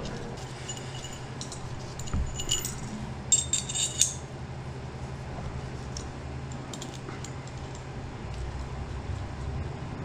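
Small steel pieces of a bearing remover kit, the collet and tensioner rod, clinking and jingling against each other as they are handled, sharpest around three to four seconds in, then a few light ticks. A low steady hum runs underneath.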